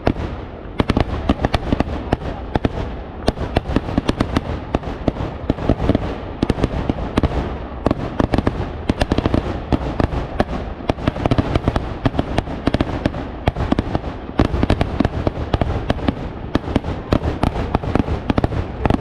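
Daytime fireworks barrage (pakal vedikkettu): a dense, unbroken run of firecracker bangs and crackles, many a second, over a continuous low din.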